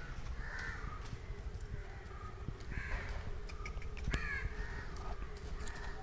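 Crows cawing repeatedly, a harsh call about every second, some louder than others.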